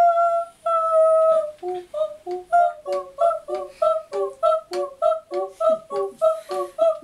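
Women's voices in an experimental vocal performance: two long held notes, then from about a second and a half in a quick, even run of short separate sung syllables, about three a second, leaping between a low and a higher pitch.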